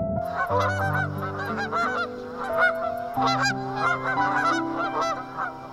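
Egyptian geese honking: a fast run of short, harsh repeated calls, several a second.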